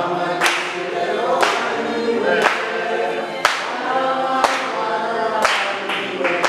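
A church congregation singing together in chorus, with a sharp beat about once a second.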